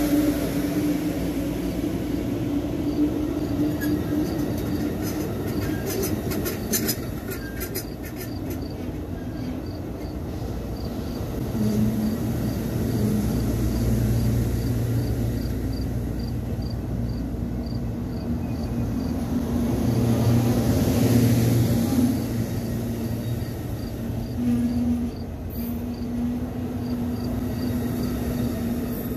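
Amtrak passenger train's diesel locomotives running with a steady engine drone that swells and eases a couple of times, with a brief cluster of sharp clicks and a faint high ticking about twice a second.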